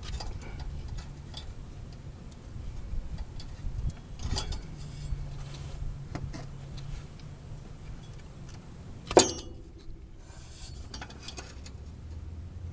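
Metal clicking and clinking as stuck shift-linkage parts on a TH350 automatic transmission are worked loose by hand, with one sharp, ringing metal clank about nine seconds in. A low steady hum lies underneath.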